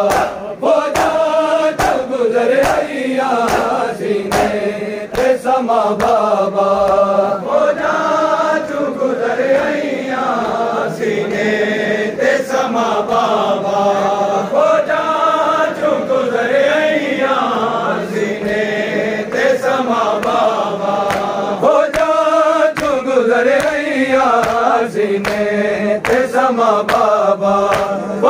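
A group of men chanting a noha, a Shia lament sung without instruments, over a steady beat of open hands striking bare chests (matam).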